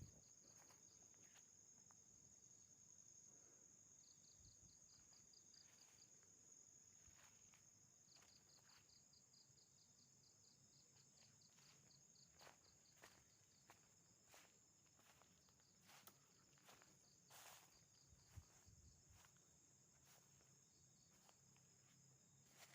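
Faint night insect chorus: a steady high-pitched drone with trains of rapid cricket chirps, and soft scattered footsteps from about halfway through.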